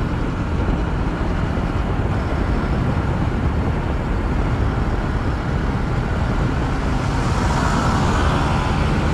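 Steady wind rush and road noise from a KTM Duke motorcycle cruising at about 70 km/h. The noise grows brighter and a little louder near the end as other motorcycles come alongside.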